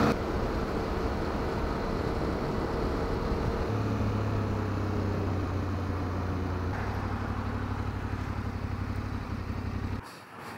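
Yamaha Ténéré 700's parallel-twin engine running at a steady cruising speed, with wind and road noise. Near the end it cuts to a quieter outdoor background.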